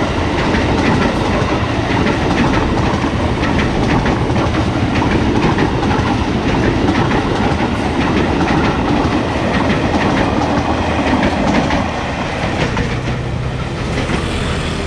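A KRL commuter electric train of the ex-Tokyo Metro 6000 series running past close by, with a steady rumble and the clickety-clack of its wheels over the rail joints. About twelve seconds in the sound drops away as the train draws off, leaving a steady low hum.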